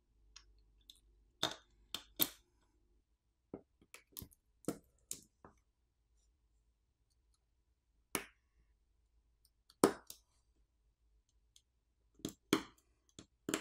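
Sharp clicks and taps from small plastic and metal phone parts being pressed into place: a smartphone motherboard being seated in its frame and flex-cable connectors being snapped onto it. The clicks come singly or in small clusters, with a quiet stretch of a couple of seconds in the middle.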